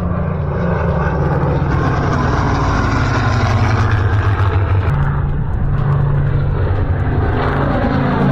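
Propeller fighter planes flying past in a formation of three, their piston engines droning, growing louder and then dropping in pitch as they pass.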